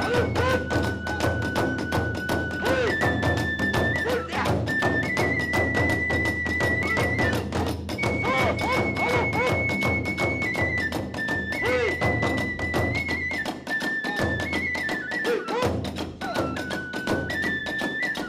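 Kagura hayashi ensemble playing: a bamboo transverse flute holding long notes that step up and down in pitch, over fast, steady beating of drums and clashing small hand cymbals.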